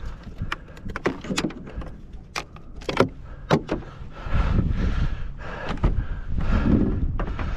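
Sharp knocks and clatter as a large muskellunge is shifted about on a plastic measuring board on a boat deck. A low rumble of wind on the microphone grows louder from about halfway through.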